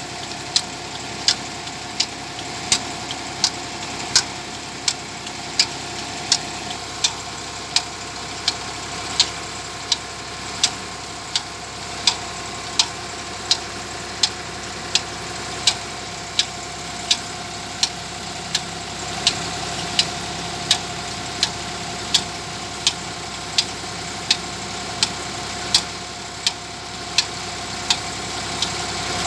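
Massey Ferguson 260 tractor's diesel engine running steadily under load, driving a tubewell pump through its PTO shaft and a flat belt pulley. A sharp tick repeats evenly about every three-quarters of a second over the steady engine hum.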